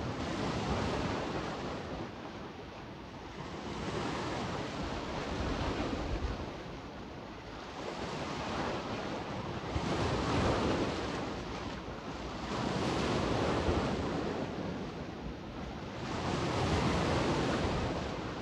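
Adriatic sea waves washing onto the shore, swelling and fading about every three seconds, with wind blowing over the microphone.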